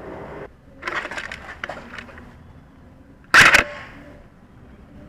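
Scattered sharp clicks and cracks of gear handling or twigs underfoot, then about three seconds in a single loud, short burst of a few shots from an airsoft electric rifle, a quick clattering rattle.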